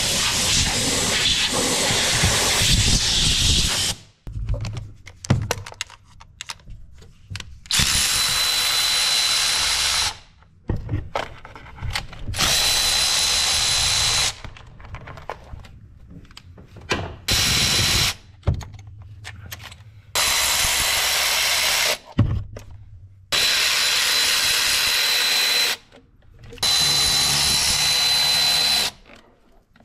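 Cordless electric ratchet running in about six short bursts of roughly two seconds each, its motor whining, as it backs out the valve cover bolts on a 7.3 Powerstroke diesel. It opens with about four seconds of steady hiss.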